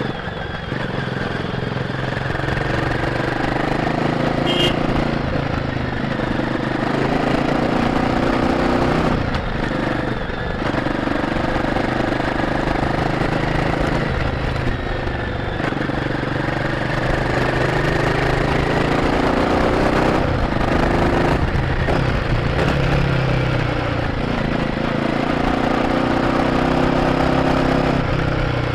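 Royal Enfield Guerrilla 450's single-cylinder engine running while the motorcycle is ridden, its note rising and falling with the throttle and dropping briefly several times, with wind and road noise behind it.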